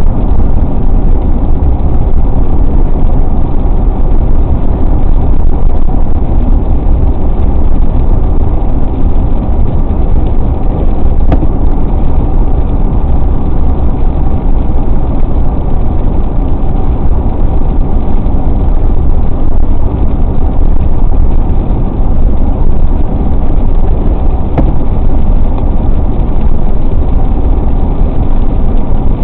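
Steady road and engine rumble of a car driving, with no changes.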